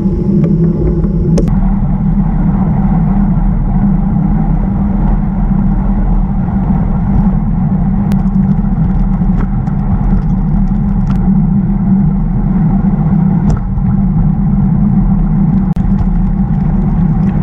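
Steady rumble of tyre, road and wind noise picked up by a camera mounted low on a road bicycle while riding, with a few brief sharp clicks.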